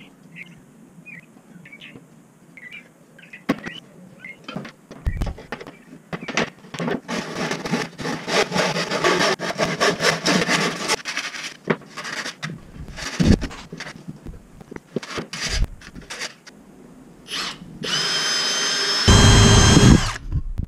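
Woodworking sounds: scattered knocks of wood being handled, then a hand saw cutting a wooden board in quick rasping strokes for several seconds. Near the end a cordless drill starts and runs with a steady whine, getting louder shortly before it stops.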